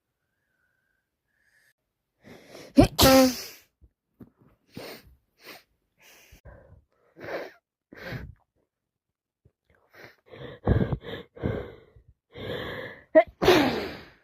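A person with a wet head cold sneezing: a loud sneeze about three seconds in and another near the end. Between them come sniffles and short, sharp breaths.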